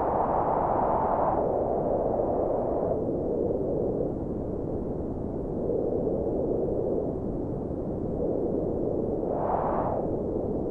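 Wind sound effect: a steady, low rushing wind noise that eases slightly after the first few seconds, then swells into a gust that rises in pitch near the end.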